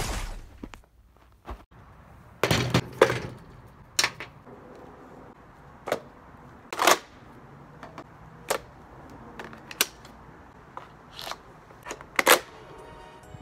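Scattered sharp plastic clacks and knocks as a Buzzbee Alpha Auto 72 foam-dart blaster and its removable 72-dart drum are handled and fitted together, about a dozen separate clicks with the loudest near the start and near the end.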